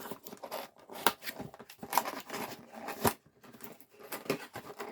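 A plastic toy being worked out of a tight-fitting cardboard box: irregular scraping and rubbing of plastic against cardboard, with sharper clicks about one, two and three seconds in.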